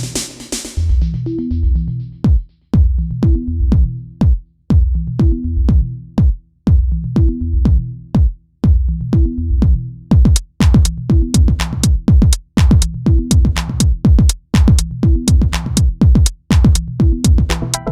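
Electronic dance music with a steady drum-machine kick and a repeating bass line; crisper high percussion joins about ten seconds in.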